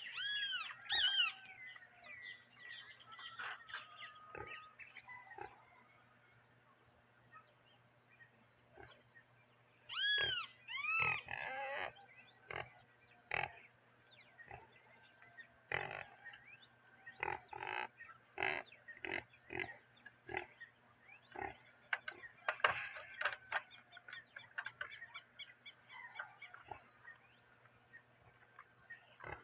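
Farmyard animals calling. Two arched, drawn-out calls come near the start and again about ten seconds in, followed by a long run of short, harsh calls repeated irregularly.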